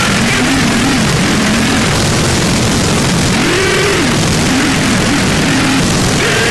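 Gorenoise music: a loud, unbroken wall of distorted noise, with wavering low tones sliding up and down through it.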